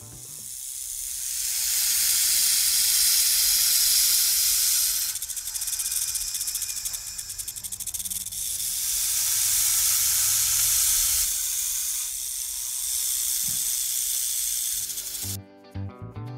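A snake hissing in long, drawn-out hisses that swell loud twice, with a rapidly fluttering stretch between the swells. The hiss stops about a second before the end, and guitar music comes in.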